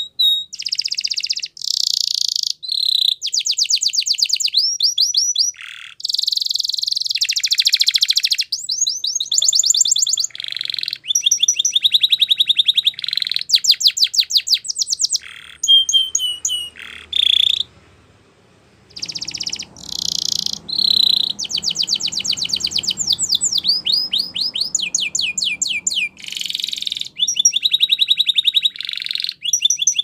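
Canary singing a long, fast song of rapid trills and rolling runs of repeated notes, with one brief pause a little past the middle before the song resumes.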